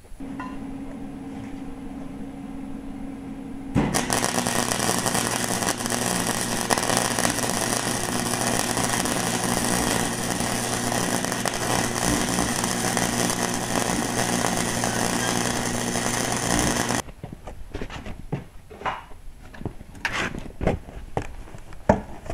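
A steady hum, then a wire-feed welder's arc crackling steadily for about thirteen seconds before cutting off suddenly. After it come a few short knocks of items being set down on a wooden table.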